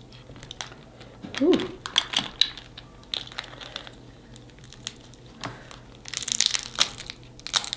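Snow crab shells cracking and crunching as they are broken apart, a scattered run of sharp snaps and crackles that grows into a dense crackling near the end.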